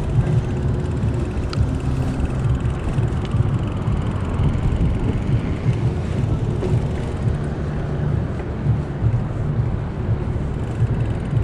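Wind buffeting the camera's microphone on a moving bicycle: a steady, uneven low rumble of wind noise.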